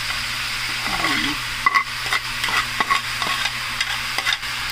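Raw ground beef sizzling as it starts to brown in a nonstick frying pan, stirred and broken up with a plastic slotted spoon. From about a second in, the spoon scrapes and taps against the pan over the steady sizzle.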